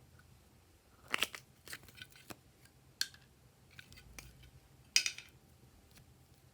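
Glossy slime being worked by hand, giving a handful of sharp clicks and pops, the loudest about a second in and again near five seconds in.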